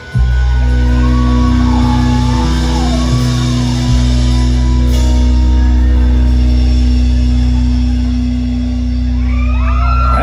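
Live country-rock band music, loud: the band comes in suddenly just after the start and holds a long sustained closing chord on guitars, the ending of the song.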